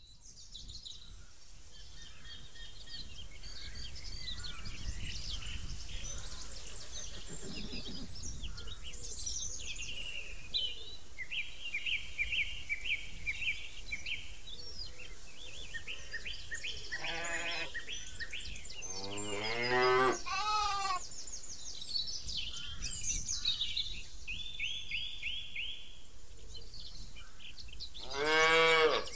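Charollais ram bleating several times in the second half, the loudest bleat near the end, over steady chirping of small birds.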